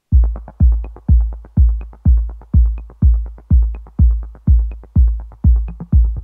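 Electronic background music with a steady kick drum, about two beats a second, and light ticks between the beats.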